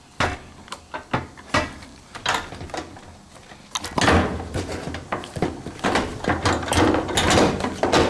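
Plastic clicks and knocks from handling a GE top-loader washer's control console. From about four seconds in comes a longer stretch of rubbing and knocking as the console panel is slid and lowered back into place.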